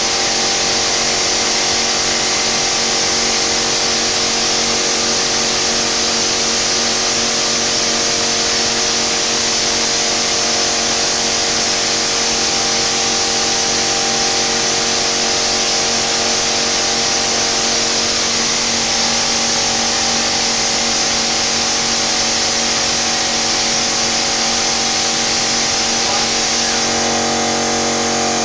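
EZ Renda EZ-sa 1301 plaster spraying machine spraying lime putty mortar onto a wall through a compressed-air spray gun: a loud, steady hiss of air and mortar over a steady machine hum.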